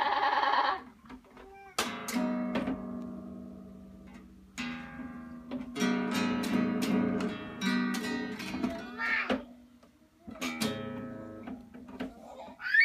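Acoustic guitar strings strummed in uneven bursts with pauses between, a run of quicker strums in the middle. A voice sounds briefly at the start, and there are short rising-and-falling vocal cries later and near the end.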